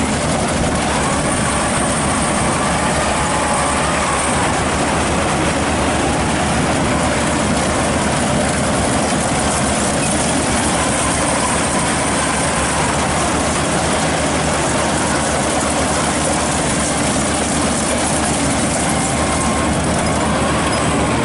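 Maxxi Bimo Extreme rice combine harvester running steadily under load: a loud, unbroken engine drone with the rushing, rattling noise of its harvesting machinery.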